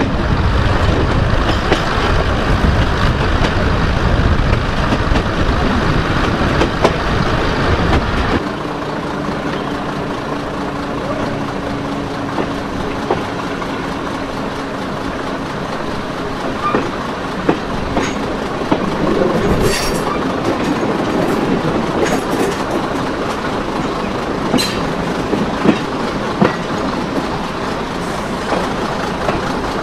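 Diesel multiple unit running along the line, heard from an open window. A heavy low rumble gives way about eight seconds in to a steadier running hum, and later there are scattered sharp clicks of the wheels over the rails.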